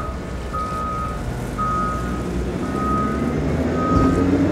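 A vehicle's reversing alarm beeping steadily, about once a second, with four beeps, over the low rumble of an engine.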